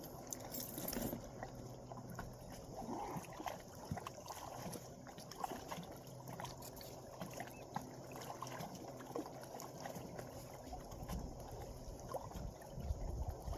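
Water sloshing and trickling at the shoreline, with scattered small clicks and knocks.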